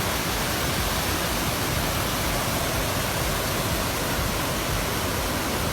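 Waterfall plunging into its pool: a steady, even rush of falling water.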